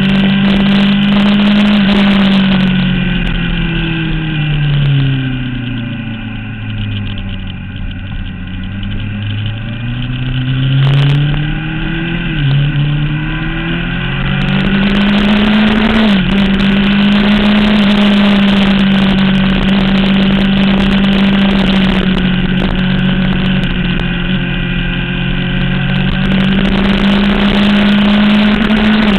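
Motorcycle engine heard onboard at speed. Its note falls steadily for several seconds, then climbs again through a couple of quick gear changes and holds a steady pitch for the second half, over constant wind rush.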